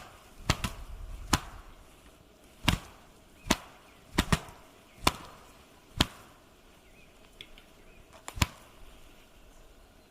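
A series of sharp knocks or cracks, about ten at irregular intervals, some coming in quick pairs, each with a short ring after it.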